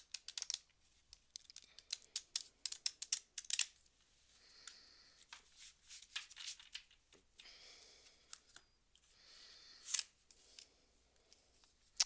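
A deck of oracle cards being shuffled by hand: a quick run of sharp papery snaps for about four seconds, then softer sliding and rustling of the cards.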